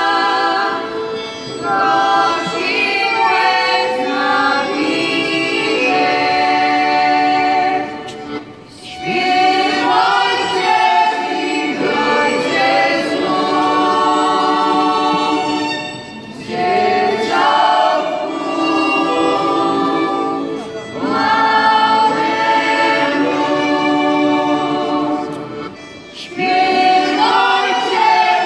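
A women's folk choir sings a Polish Christmas carol into microphones. It goes in long phrases, with a short break for breath about every eight seconds.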